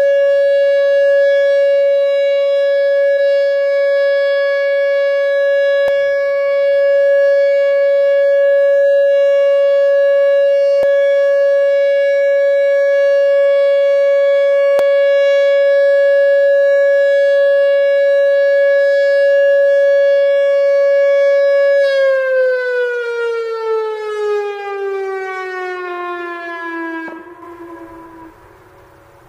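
Whelen WPS-2910 electronic outdoor warning siren sounding its steady alert tone at one pitch. Near the end it glides down in pitch over several seconds and then cuts off, ending the one-minute alert signal.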